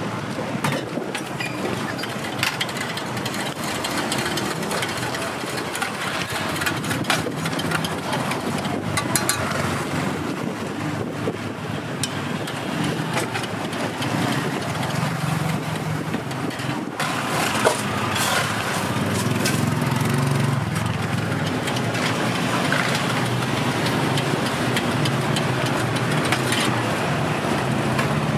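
Street traffic and motor noise as a steady background, with a rumble that grows louder a little past halfway. Over it come scattered sharp clinks of a metal spoon and stainless steel cups as coffee is stirred and poured.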